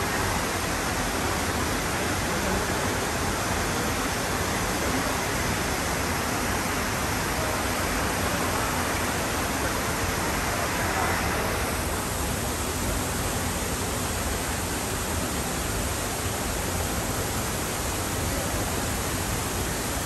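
Steady rushing and splashing of an outdoor ornamental fountain: a row of vertical water jets and water spilling over a cascade wall, with a slight change in tone about twelve seconds in.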